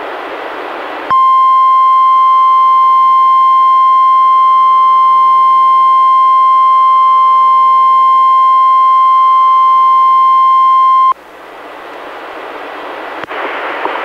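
NOAA Weather Radio warning alarm tone: one steady pitch near 1 kHz (the 1050 Hz alert tone), held for about ten seconds and then cut off sharply, played through a Reecom R-1630 weather radio as part of a required weekly test. Radio hiss comes before the tone and swells back up after it.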